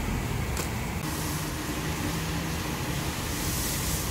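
A steady low rumble with a faint engine-like hum, and a single sharp knife chop on a wooden chopping block about half a second in.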